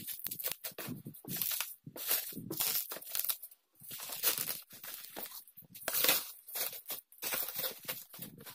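Bubble wrap and tape being pulled and peeled by hand off a flat cardboard package: irregular crinkling, crackling and tearing of plastic in short bursts, with the cardboard rubbing and sliding.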